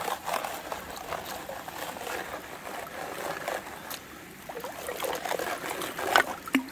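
Water and gravel swishing and sloshing in a plastic gold pan held in a trickling creek, with a sharp knock near the end.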